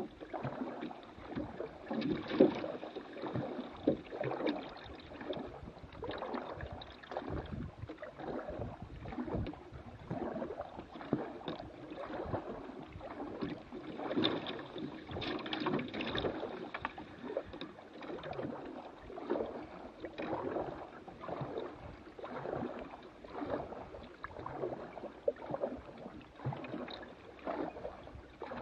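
A canoe being paddled: repeated, uneven paddle splashes, with water gurgling along the hull.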